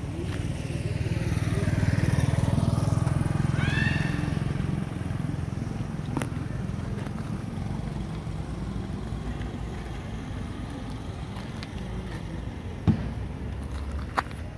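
A motorbike passing along the road, its engine growing to its loudest about two seconds in and then fading away over the next few seconds. A short high squeal sounds about four seconds in, and a couple of sharp clicks come near the end.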